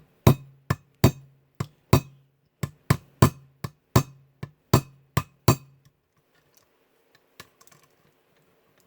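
Small brass hammer tapping a brass rivet to peen it into a knife handle: about fifteen quick, sharp strikes, two to three a second, that stop after about five and a half seconds, followed by a few faint clicks.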